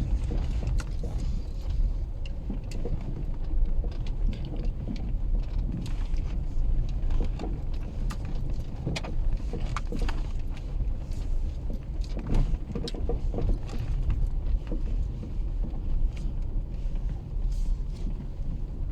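A worn front anti-roll bar (stabilizer) link on a Volkswagen Polo knocking irregularly as the car drives over bumps, over the steady low rumble of the car on the road. The knocking is the typical sign of worn-out stabilizer links.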